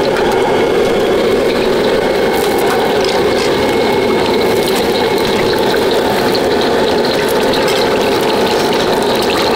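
Fried rice being stir-fried in a wok: a metal spatula clattering and scraping rapidly against the wok over a steady rushing noise.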